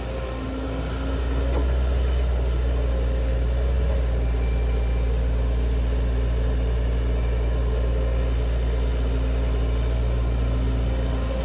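Heavy machinery diesel engine running steadily with a deep hum that rises in level about a second in, with a faint steady whine above it.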